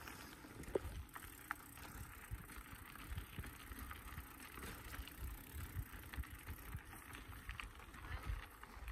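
Bicycles rolling over a dirt trail: tyre noise and small bumps and rattles from the bikes, with a low uneven rumble of wind on the microphone.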